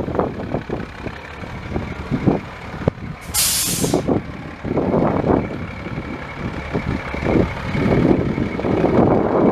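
Sterling L8500 truck's Caterpillar C7 inline-six turbo diesel running with an uneven rumble, and a short, sharp hiss of compressed air from the air brake system a little over three seconds in, lasting under a second.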